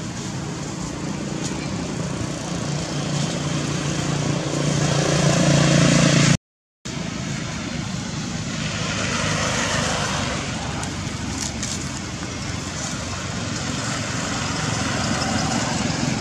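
A motor engine running steadily and growing louder, cut off abruptly about six seconds in. A steady rushing noise follows.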